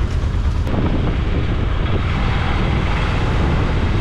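A moving vehicle with wind buffeting the microphone: a steady low rumble under a hiss of wind and road noise that grows fuller and louder less than a second in.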